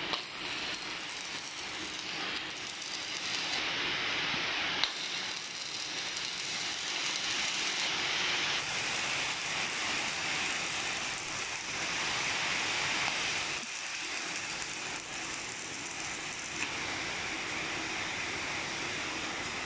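Electric arc welding: a steady crackling hiss, with a few abrupt shifts in level.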